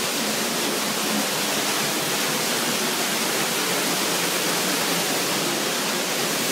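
Spouting Rock waterfall heard from close beneath the fall: a loud, steady rush of water gushing out of the cliff and pouring down.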